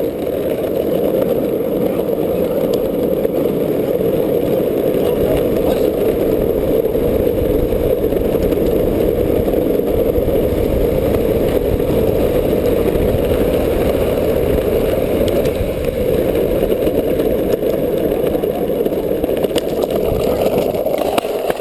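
Skateboard wheels rolling over asphalt, a steady rumble heard close up from the board.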